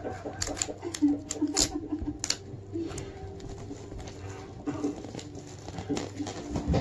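Wrapping paper and clear plastic being handled as a present is wrapped, with sharp crinkles and crackles mostly in the first couple of seconds and scattered rustles after, over a faint steady hum.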